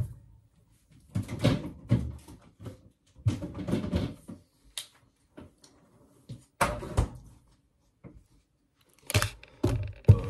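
Kitchen handling noise: a sharp knock, then irregular bursts of clatter and bumps every couple of seconds as things are moved about.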